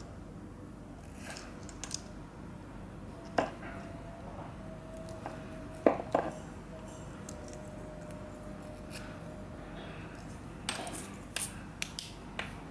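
Scattered clicks and light metallic taps from handling a small metal LED flashlight, louder pairs about six seconds in and a quick cluster near the end.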